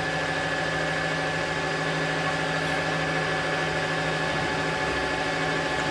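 Manual milling machine running steadily, a 12 mm ball-nose end mill cutting a 2 mm-deep slot into a motorcycle brake disc; an even hum with several steady tones.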